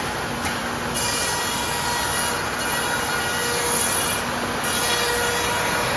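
Twin-spindle CNC router cutting stair stringers from a wooden sheet, with its dust-extraction hoods pulling air. It makes a steady, loud rushing noise with a faint steady hum under it.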